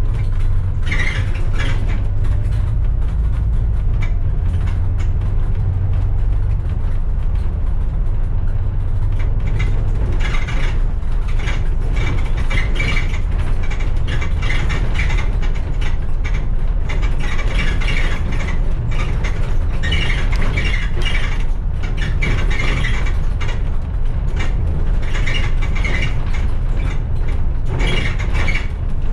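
A bus driving along a road: a steady low engine and road rumble, heavier in the first few seconds, with bursts of rattling from loose fittings as it goes.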